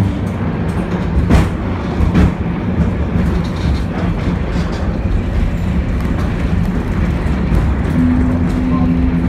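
M-24 museum tram running on its rails, heard from inside the car: a steady rumble from wheels and running gear. Two sharp clacks from the wheels on the track come about a second and a half and two seconds in.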